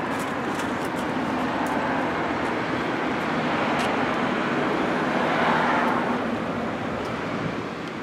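Road traffic passing, a steady rush of tyre and engine noise that swells about five seconds in and eases off near the end.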